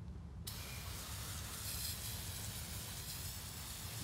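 An aerosol spray can hissing in one long continuous spray onto a greasy differential casing, starting about half a second in.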